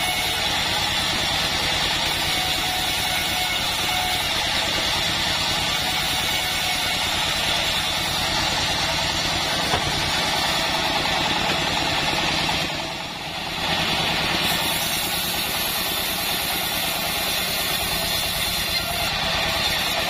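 Bandsaw mill running with a steady mechanical drone and whir. It dips briefly about two-thirds of the way through.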